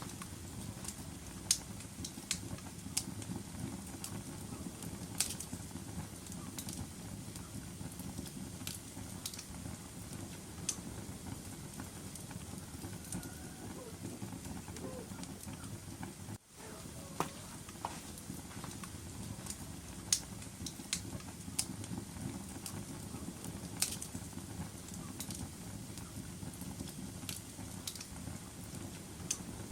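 Wood fire burning in a fireplace: a steady low rumble of flames with irregular sharp crackles and pops from the burning logs. The sound drops out for an instant about halfway through.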